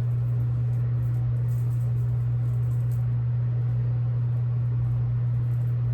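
A steady low hum that holds constant throughout, with only faint soft background noise above it.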